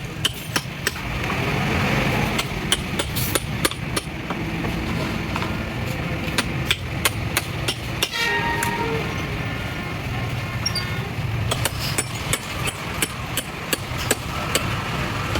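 Irregular hammer knocks, sometimes a few a second, over a steady background rumble of traffic.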